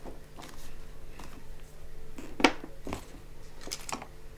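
Paper sheets and board being handled on a desk: light rustling and scattered taps, with one sharp knock about halfway through.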